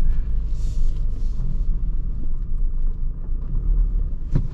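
Van driving across a grass field, heard from inside the cab: a steady low rumble of engine and tyres.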